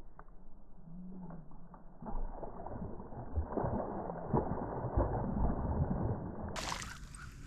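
Muffled knocks and rustling from handling gear in a small fishing boat, with some water gurgling, louder after about two seconds.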